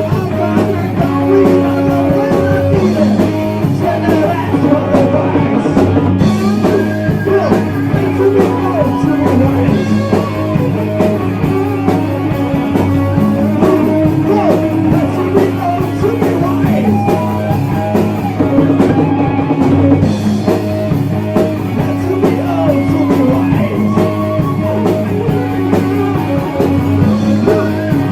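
Heavy metal band playing a song: electric guitar and drum kit with a singing voice, loud and unbroken.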